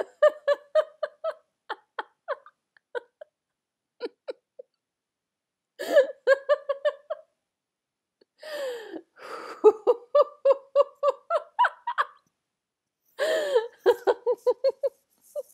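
A person laughing in several short fits of rapid, evenly spaced 'ha-ha-ha' pulses, each fit cut off abruptly by silence.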